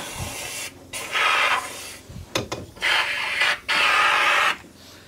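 Electrostatic powder coating gun spraying compressed air and powder in three short hissing bursts, each under a second long, with pauses between.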